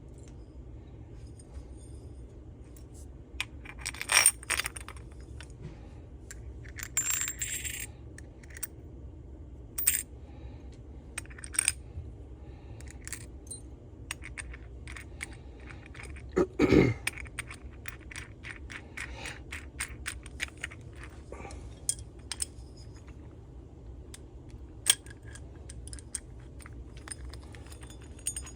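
Small metal engine parts and hand tools clinking, tapping and scraping in scattered clicks, with louder knocks about four, seven and seventeen seconds in, over a low steady hum.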